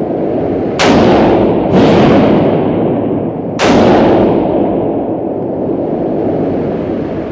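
Three gunshots, about a second apart and then two seconds later, each followed by a long echoing decay.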